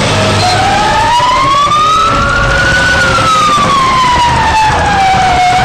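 Fire engine siren in a slow wail: the pitch climbs steadily for a couple of seconds, falls slowly for about as long, and starts to climb again near the end.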